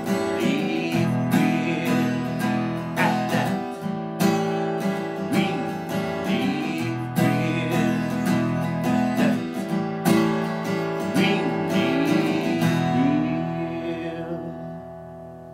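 Acoustic guitar strummed in a steady, unhurried pattern, its chords ringing between strokes. Near the end the strumming stops and the last chord rings out and fades.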